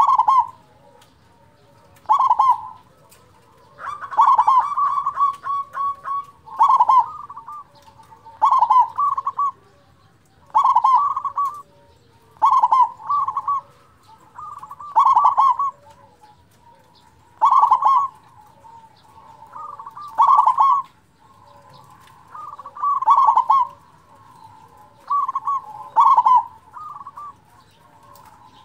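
Zebra dove (perkutut) singing its big-voiced cooing song: a short, stuttering phrase of quick notes repeated about every two seconds, with one longer phrase about four seconds in.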